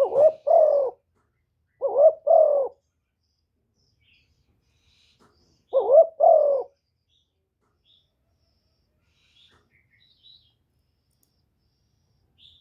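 Spotted dove cooing: three deep two-note phrases, two close together at the start and a third about six seconds in. Faint high chirps of small birds come in between.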